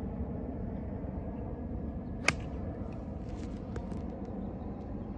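A single sharp click of a golf club striking a ball, about two seconds in, over a steady low background noise, with a few faint ticks after it.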